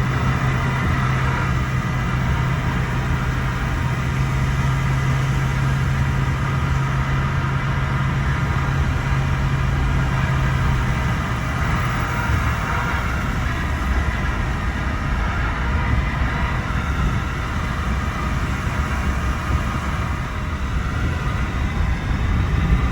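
Pickup truck driving on a dirt road: steady engine and tyre rumble, with a low hum that drops out about eleven seconds in.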